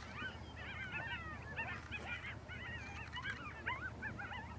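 A chorus of coyotes yipping and howling: many short calls that rise and fall in pitch, overlapping one another throughout.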